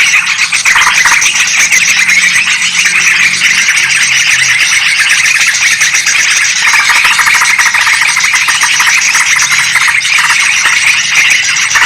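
Yellow-vented bulbuls and sooty-headed bulbuls in agitated, noisy chatter, a dense unbroken stream of overlapping calls, played as a bird-trapping lure.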